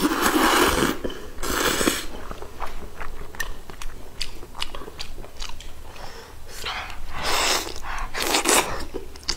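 Close-up eating sounds: two loud slurps as a mouthful of glass noodles is sucked in, then wet chewing with many small clicks, and two more loud bursts near the end as a slice of fatty pork belly is bitten into.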